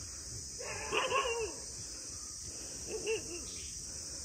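A dog giving two short whining yelps, the first and louder about a second in, a fainter one near three seconds. Steady chirring of insects runs behind.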